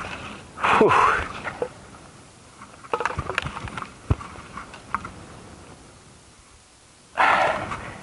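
A climber's heavy, voiced breaths of effort, one loud one about a second in and another near the end. In between come scattered crackles and snaps of dry bamboo leaves and twigs underfoot.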